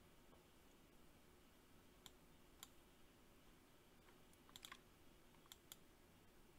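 Faint computer mouse clicks, about half a dozen short separate clicks from about two seconds in, a few close together near the middle, over near-silent room tone.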